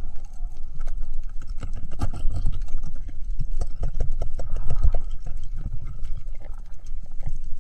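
Underwater recording: a low rumble of moving water with frequent clicks and knocks, most of them around the middle, as a diver handles a speared barracuda and his gear.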